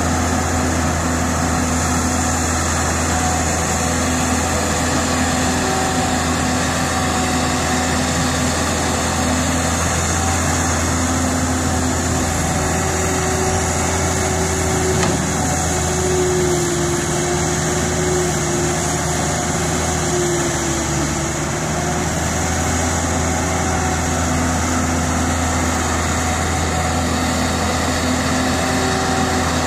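Caterpillar E120B excavator's diesel engine running steadily under load as the machine digs earth and rock and swings its bucket to the truck, with a tone that wavers a little in the middle.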